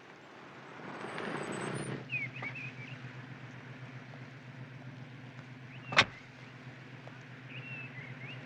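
A car engine running with a steady low hum, a louder swell of noise between one and two seconds in. Birds chirp now and then, and a single sharp knock comes about six seconds in.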